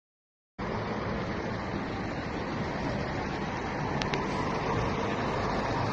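Steady roadside noise of wind and traffic hum, starting abruptly about half a second in after silence.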